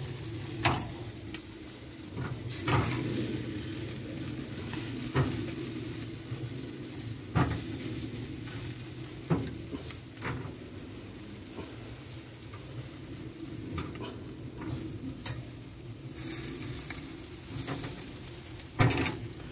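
Chicken pieces sizzling steadily on a charcoal barbecue grill, with sharp clicks every few seconds and a louder one near the end.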